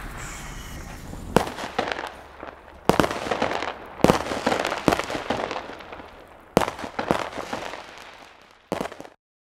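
Fireworks going off: a string of about seven sharp bangs at uneven intervals, each followed by a crackling tail that fades away. The sound cuts off abruptly near the end.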